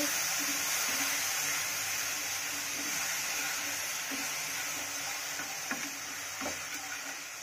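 Sugar and a little water bubbling and sizzling in a nonstick pan as the sugar melts toward caramel: a steady hiss that slowly gets quieter, with a few light scrapes of a wooden spatula stirring it.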